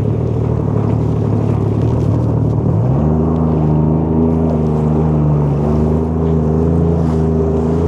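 Jet ski engine running; about three seconds in the throttle opens and its pitch rises, then holds steady at the higher speed.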